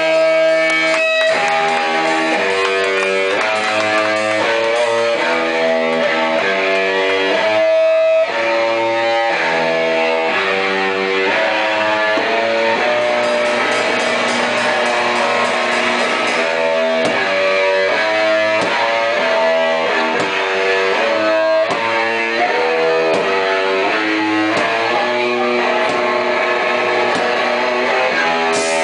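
Guitar band playing, the guitar chords changing about once a second at a steady loud level.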